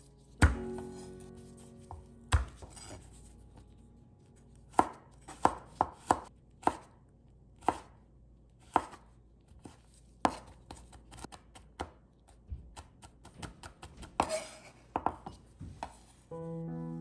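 Chef's knife chopping garlic and ginger on a wooden cutting board: single sharp strikes at uneven intervals, then quicker runs of lighter taps in the second half. Background music comes in near the end.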